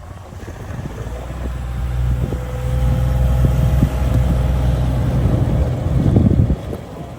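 A motor vehicle's engine running with a steady low drone, growing louder over a few seconds and then falling away near the end.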